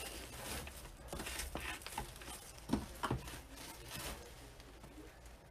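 Ribbon rustling and crinkling as it is handled and cut with scissors, with a couple of soft snips a little under halfway through.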